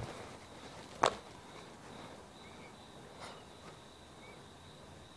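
Workshop handling of small parts on a motorcycle's open aluminium crankcase: one sharp click about a second in and a fainter click a couple of seconds later. A faint steady high tone runs underneath.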